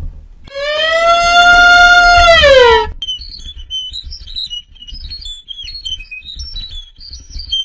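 An animal giving one long, loud, clear call that holds its pitch and then slides down at the end, followed by a run of quick, high-pitched chirps.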